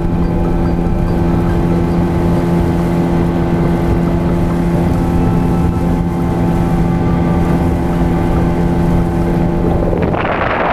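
Boat motor running at a steady pitch, with wind and water noise. Near the end the engine tone drops out and a loud rushing noise takes over.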